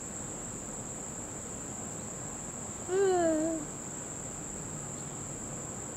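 Steady, high-pitched chirring of insects outdoors. About halfway through, a brief voice-like hum of under a second rises and then falls in pitch.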